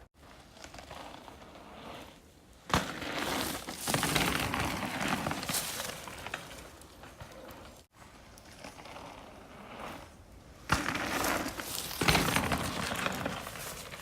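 Mountain bike riding over a rough dirt trail: tyre noise and the frame and drivetrain rattling over bumps, twice, each pass starting with a sudden loud jolt, about three seconds in and again near the end.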